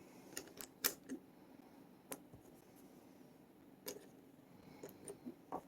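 A few faint, scattered clicks of small metal padlock parts being handled as a nut is fitted into the lock body.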